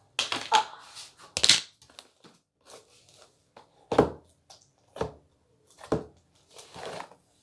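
Hands squeezing and stretching slime, giving a series of irregular sticky clicks and crackles.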